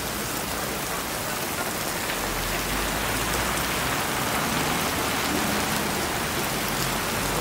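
Heavy rain pouring onto a street and pavement: a steady, dense hiss of drops splashing on wet tarmac and stone.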